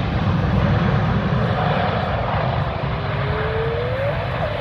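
Airbus A380's four jet engines running at high power as the airliner speeds along a wet runway: a deep, steady rumble under a broad hiss, with a whine that climbs steadily in pitch.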